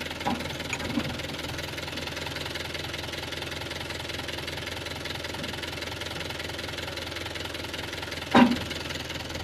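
Farm tractor's diesel engine idling steadily, with one brief loud sound near the end.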